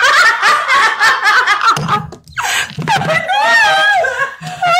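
Women laughing together, their laughs overlapping, with a short break about two seconds in.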